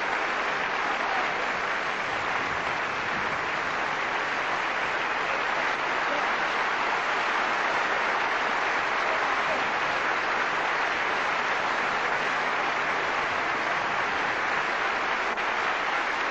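Audience applauding steadily, dense continuous clapping with no letup.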